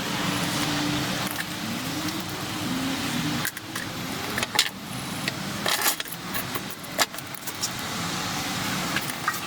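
Metal parts clinking and clattering over a steady machine hum and hiss, with a run of sharp clicks around the middle.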